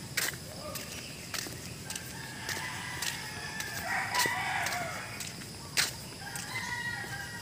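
A rooster crowing: one long crow about two seconds in and a shorter one near the end, with a few sharp clicks in between.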